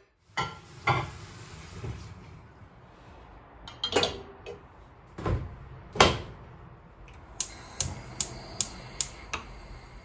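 Kitchen handling sounds: several separate knocks and clunks of dishes and fittings, then six sharp clicks evenly spaced, about two and a half a second, in the last few seconds.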